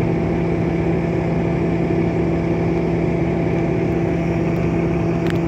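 A vehicle engine running steadily: a constant hum over even road-and-engine noise that holds level throughout.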